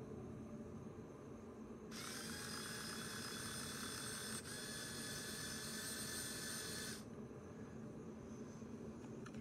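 The small electric motors of a LEGO Technic Liebherr R 9800 excavator model whining as they drive its gears and linear actuators to move the boom, for about five seconds with a brief break partway, over a low steady hum.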